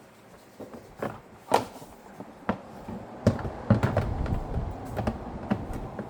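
Clicks and knocks of small plastic trim covers being handled and pressed into place inside a vehicle's interior, coming thicker from about three seconds in over a low rumble.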